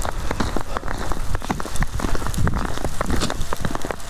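Footsteps crunching and squelching in soft, sticky wet snow, heard as dense irregular crackling and pattering, with wind rumbling on the microphone.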